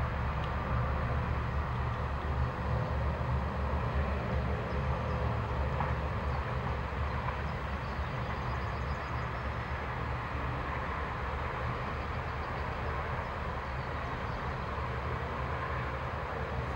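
Steady low background rumble, like distant traffic, with a faint haze of higher noise and no distinct events.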